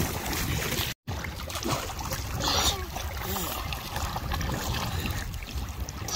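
Shallow lake water sloshing and lapping around children wading through it, over a steady low rumble of wind on the microphone. The sound cuts out briefly about a second in.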